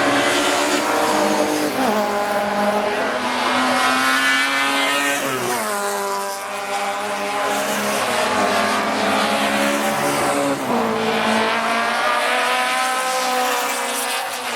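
Historic racing car engines at full throttle, their pitch climbing through the revs, dropping sharply about five to six seconds in and again near eleven seconds, then climbing again.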